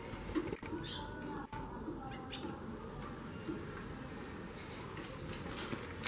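Female white-bellied seedeater (chorão) giving a few short, high chirps in its cage: the 'xaxando' call of a female in breeding condition.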